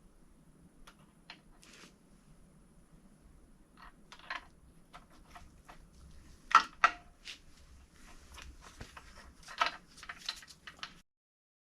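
Scattered light metallic clicks and clinks of engine parts and hand tools being handled, with two louder clinks about six and a half and nine and a half seconds in. The sound cuts off abruptly near the end.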